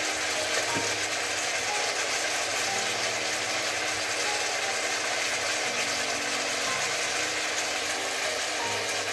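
Sweet-soy and tamarind sauce bubbling and sizzling steadily in an uncovered nonstick wok as its liquid boils down and reduces.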